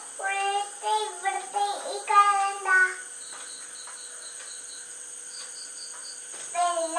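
A young girl singing for about three seconds, then a pause holding only faint, evenly spaced high chirps, about four a second, over a steady hiss; her voice comes back near the end.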